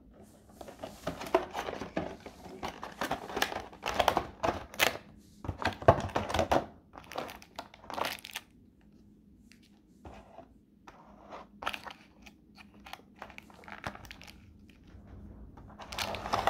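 Clear plastic packaging tray of a diecast model airliner being handled and the model pulled out of it: irregular crinkling and crackling of the plastic, dense for the first eight seconds or so, then sparser and quieter, with another burst of crinkling near the end.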